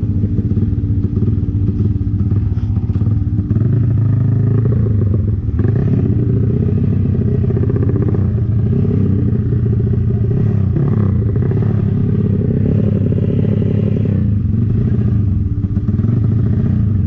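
Motorcycle engine running hard at speed, its pitch rising and falling several times as the throttle and gears change.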